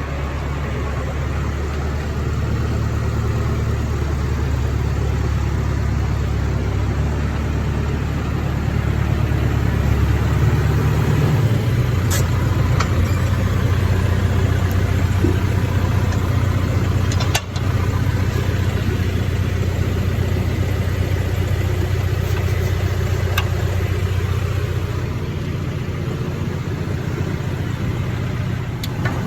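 Farm tractor engine running steadily, its note stepping up a little about eleven seconds in, with an instant's break partway through.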